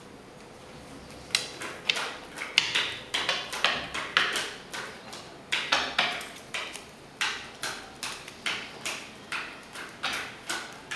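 Playing cards being handled and laid down on a tabletop: a run of light, sharp taps and clicks, about three a second, starting about a second in.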